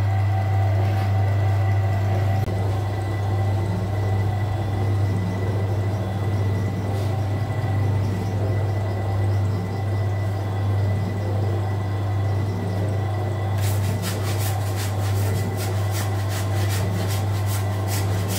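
Commercial bakery dough mixer running, its motor humming steadily while the kneading hook churns a large batch of dough in the steel bowl. About three-quarters of the way through, a rapid ticking starts, about four clicks a second.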